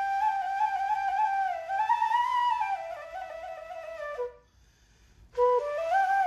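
Solo flute playing a slow, wavering melody as background music. It breaks off for about a second near two-thirds of the way in, then starts a new phrase.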